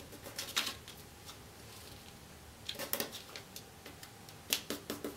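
A folded sheet of paper rustling and crackling as its corner is folded and the crease pressed flat, in a few short clusters of crisp crackles.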